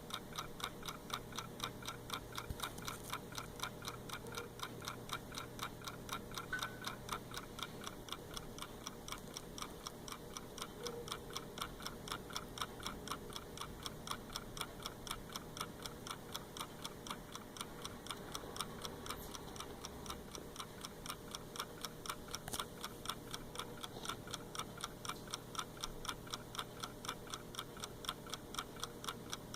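Wind-up mechanical clock ticking: its escapement beats out a rapid, even run of sharp ticks, several a second.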